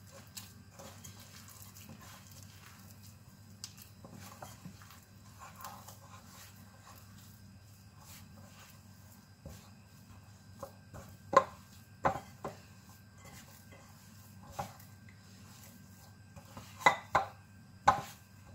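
Hands mixing and kneading flour dough in a bowl: soft squishing and rubbing with scattered small clicks and a few sharp knocks against the bowl, the loudest about 11 seconds in and a cluster near the end, over a steady low hum.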